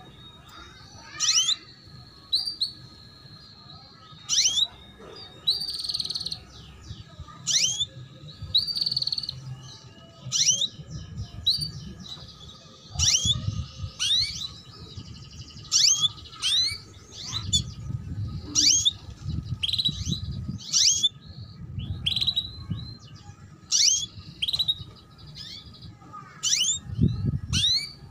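Female canary giving repeated short 'cuit cuit' chirps, each a quick falling sweep, about one every second or so: the call of a hen canary in breeding condition, used to stir male canaries into song.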